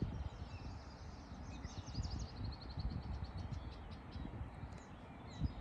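Small birds singing, with a fast high trill of evenly spaced notes about two seconds in, over a low rumbling background.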